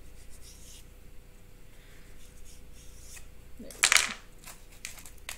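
Knife cutting and scraping lightly through crescent roll dough on a cutting board, with small ticks, then the knife set down on the board with one loud, sharp knock about four seconds in.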